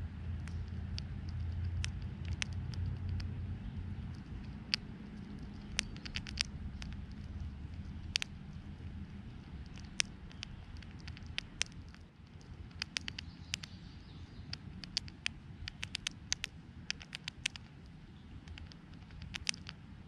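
Eastern chipmunk chewing seeds close to the microphone: sharp, irregular crunching clicks, often in quick clusters. A low rumble runs under the first half.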